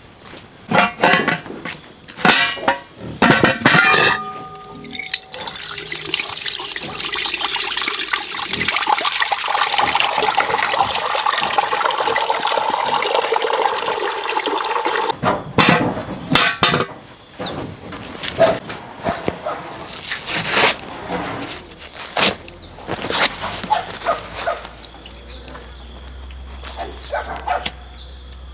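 Water running from a plastic barrel's tap into a metal pot for about ten seconds, then scattered clatter of the pot and lid being rinsed and handled. Insects chirp steadily in the background.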